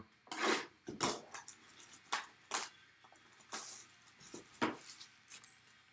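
Clear plastic shrink-wrap being torn and peeled off a cardboard trading-card box, a run of irregular crinkles and rustles.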